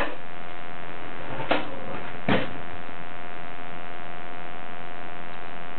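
Steady electrical hum with a faint whining tone, broken twice by a brief soft sound, about a second and a half and two and a half seconds in.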